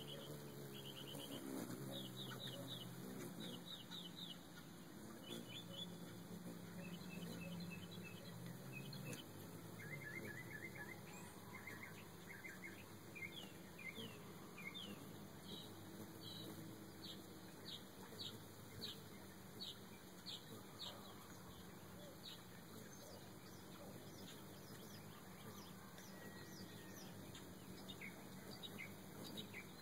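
Faint bird chirps: short high notes, some single and some in quick runs, repeating on and off. A low steady hum sounds under them for about the first third and then fades.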